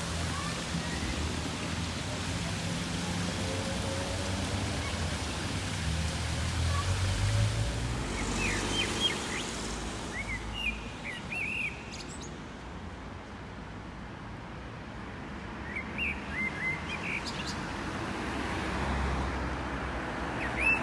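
Small birds chirping in short clusters of calls, several times over, against a steady background of outdoor noise. A low rumble fills the first several seconds and then fades.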